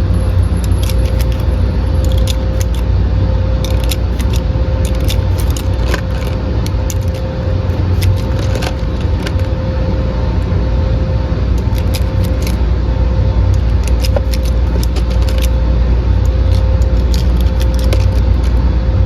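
9mm cartridges being pressed one by one into Glock magazines: irregular small metallic clicks, over a steady low hum with a faint constant whine.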